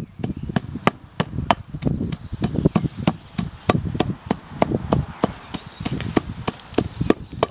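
Hand tamper striking freshly laid cold-lay asphalt pothole repair material again and again, about three sharp thuds a second, compacting the fill into the hole.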